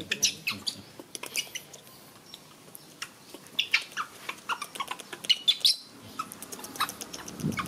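Baby macaques giving many short, high-pitched squeaks and calls, scattered irregularly, as they wrestle in play.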